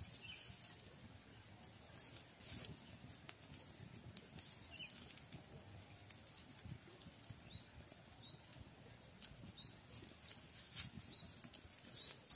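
Small fire of dry twigs and grass crackling faintly, with scattered sharp pops and ticks.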